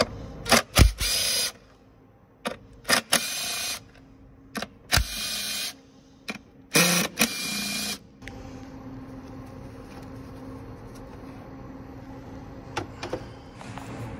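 Makita 18V cordless driver spinning cam cover bolts on a BMW S62 V8: four short runs of the tool, each under about a second and a half and mostly led by a sharp click, over the first eight seconds, followed by a steady low hum.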